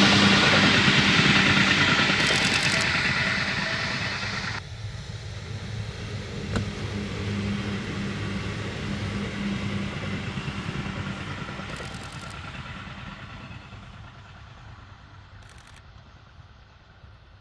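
Tobu 8000 series electric train running by with a steady hum, loud at first. About four and a half seconds in the sound drops sharply, then fades away steadily as the train draws off into the distance.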